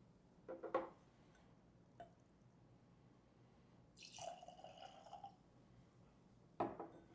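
Booker's bourbon poured from the bottle into a tasting glass for about a second and a half in the middle, between a few light knocks of glass on the table.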